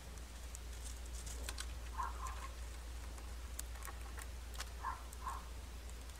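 Mice nibbling and rustling in dry straw: scattered sharp ticks and crackles, over a steady low electrical hum. A soft, short two-note call from an unseen animal comes twice, about three seconds apart.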